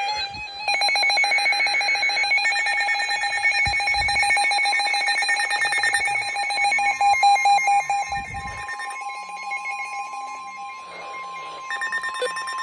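NOAA weather radios sounding their alerts for a Special Marine Warning: rapid, evenly repeating electronic alarm beeps. About seven seconds in, a single steady warning alarm tone joins them and holds on.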